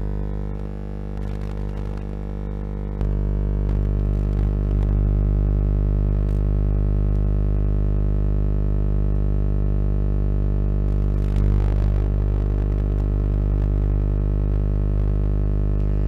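A steady electronic drone of several held tones with no change in pitch, louder from about three seconds in.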